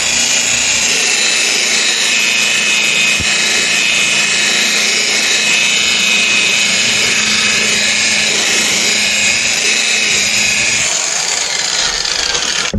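Electric rotary buffer polishing fresh automotive paint, its motor running at a steady whine over the hiss of the pad on the panel. It winds down with a falling pitch near the end.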